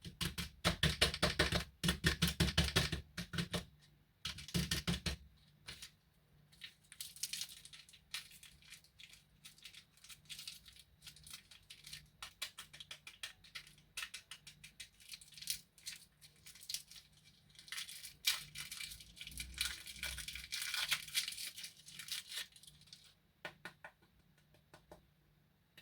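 Candy packaging being handled: crinkling, tearing and rattling. There are dense bursts of crackle at the start, again about four seconds in, and through a long stretch in the second half, with scattered crinkles between them.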